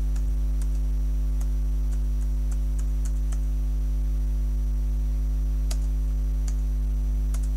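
Computer keyboard keys clicked one at a time, a dozen or so scattered taps, over a steady low electrical mains hum.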